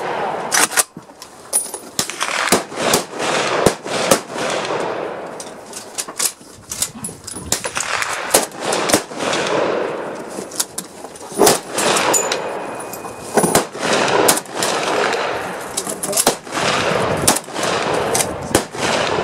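Rifle fire from several shooters on a range firing line, including a Saiga AK-74 sporter in 5.45×39mm: sharp shots at uneven spacing, sometimes two or three within a second, each trailing off in echo.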